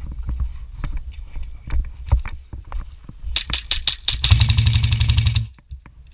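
Airsoft gun firing: about half a dozen single shots in quick succession, then a rapid full-auto burst of a little over a second that cuts off suddenly. Scattered handling clicks and knocks come before the shots.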